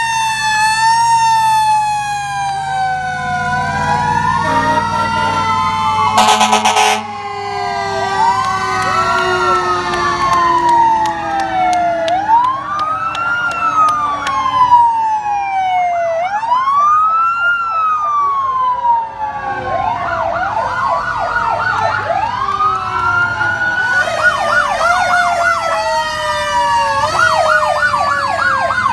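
Several fire-truck sirens sounding at once as the apparatus drives past: repeated rising-and-falling wails over a long, slowly falling tone, joined by a rapid yelp from about twenty seconds in. A short horn blast sounds about six seconds in, over the low rumble of truck engines.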